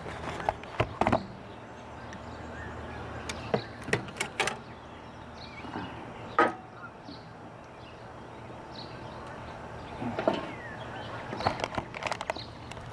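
Scattered clicks and knocks of a 1956 Olympia SG1 typewriter's metal parts being handled. They come in small clusters, with one louder knock about six seconds in, over a faint steady hum.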